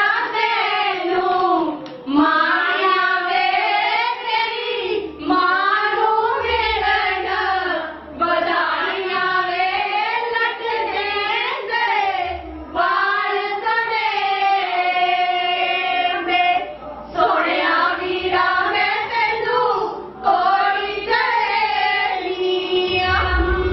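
A group of women singing a Punjabi wedding song together in unison, in phrases of a few seconds with short breaks for breath.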